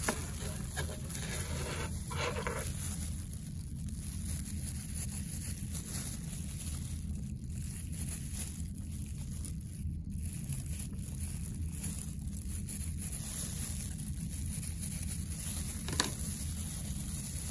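Steady low room hum with faint handling sounds from gloved hands working over a dissection tray, and one sharp click near the end.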